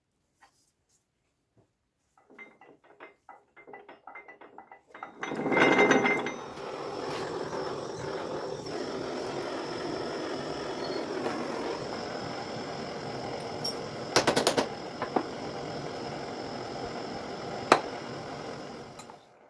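A quick run of irregular clicks, then a power tool starts up and runs steadily for about fourteen seconds, with a few sharp knocks near the end.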